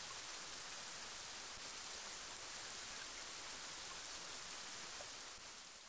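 Rain falling steadily, an even, quiet hiss of rain that fades out near the end.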